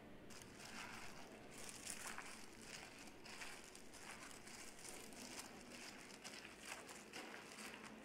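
Hands mixing julienned radish strips with chili flakes and seasoning in a glass bowl: a faint, irregular wet rustling with small crackles.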